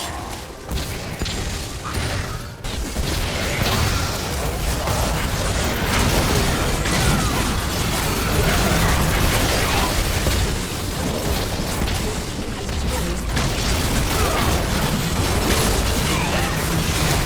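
Irregular clicking, rattling and scraping of computer hardware being handled during PC assembly.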